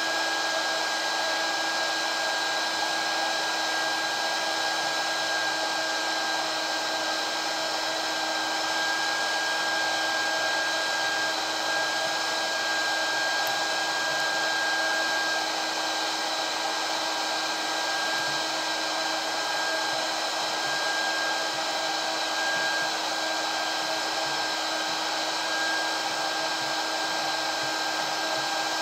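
300 W hot air gun running continuously, its fan blowing a steady rush of air with a constant high tone over it, as it heats an SMD chip on a circuit board for desoldering.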